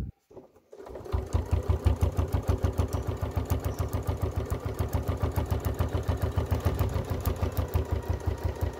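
Electric sewing machine starting about a second in and running steadily, its needle strokes making a quick, even beat. It is topstitching through thick layers of patchwork fabric, lining and zipper tape, and the machine is heard working through that thickness.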